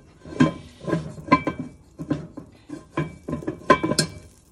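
Pot lid being set on a pot and shifted into place: a run of about ten irregular clinks and knocks against the rim, each with a short ringing after it.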